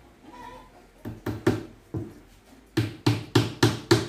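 Claw hammer driving nails into a plywood cabinet top: four lighter, uneven blows, then a steady run of louder blows about three a second.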